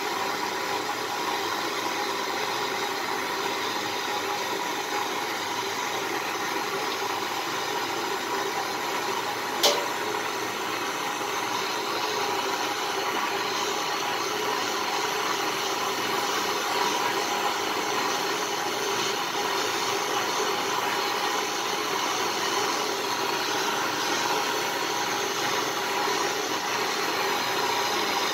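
Handheld butane torch burning with a steady hissing roar as its flame heats a metal crucible to melt silver. A single sharp click about ten seconds in.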